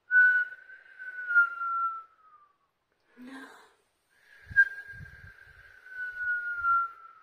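A woman whistling through her lips to imitate the wind: two long, steady notes, each sliding slightly down in pitch at its end, with a breath taken between them.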